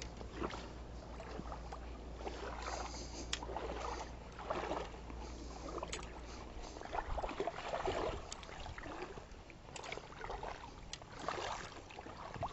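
Water sloshing and swishing in irregular strokes as a person wades through the shallows in waders, with a few sharp clicks and knocks.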